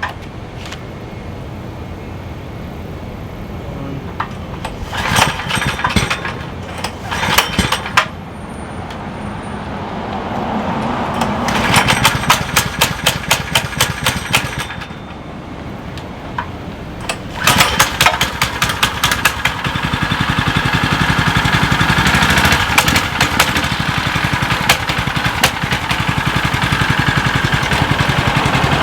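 Mini bike's Predator 212 single-cylinder engine running, speeding up in three short bursts and then holding a louder, steady speed for the last third.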